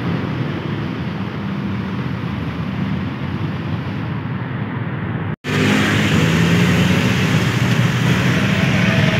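Steady road traffic noise from passing cars. It cuts out for an instant about five seconds in and comes back louder.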